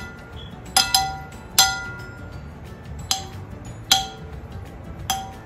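Metal spoon clinking against glass bowls while chopped Jello is spooned out, about six sharp strikes that each ring briefly.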